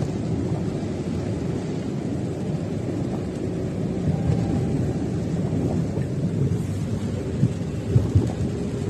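Low, steady rumbling wash of floodwater against a vehicle driving through a flooded street, with a few heavier thumps near the end.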